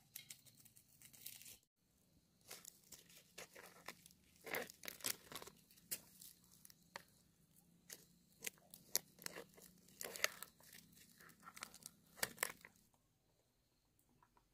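Dry husk sheaths being torn and peeled off a fresh bamboo shoot by hand: irregular tearing and crackling, which stops near the end.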